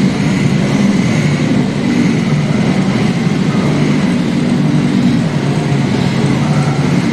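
A field of standard two-stroke scooters running together on the start grid, a steady dense engine noise.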